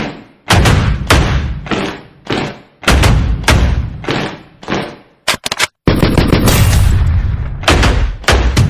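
Gunshot-style sound effects: heavy shot-like hits about one a second, each with a long echoing tail. About five seconds in comes a quick stutter of shots, then a denser, continuously loud stretch with a brief rising hiss.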